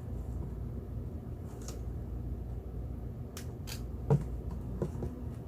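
Handling noises: a few light clicks and rustles, then a sharper knock about four seconds in and a smaller one soon after, over a steady low hum.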